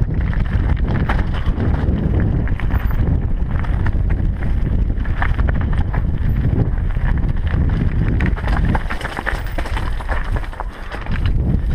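Mountain bike descending a loose, rocky trail: heavy wind buffeting on the microphone over tyres crunching across gravel and stones, with the bike clattering and rattling over the rocks.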